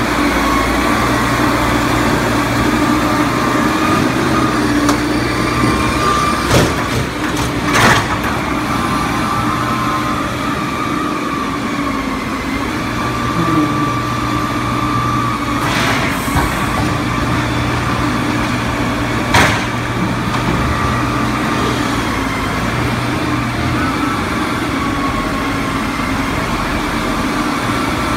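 Forklift engine running steadily while its hydraulic pallet-inverter attachment clamps and turns a pallet load, with a few sharp knocks along the way.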